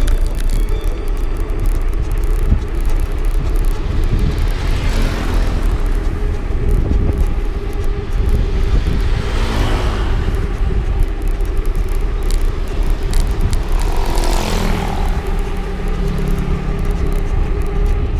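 Road vehicle noise: a steady engine and road rumble, with three vehicles swelling past about five, ten and fourteen seconds in.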